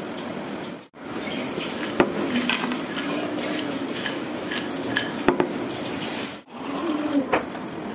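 Fried potato chips being tossed and shaken in a bowl: scattered clicks and light rattling over a steady hiss, with the sound briefly cutting out twice.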